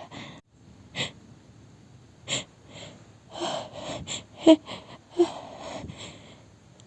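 A person's sneeze build-up from a tickling nose: two sharp sniffs, then a run of short, breathy gasps, a few of them with a touch of voice.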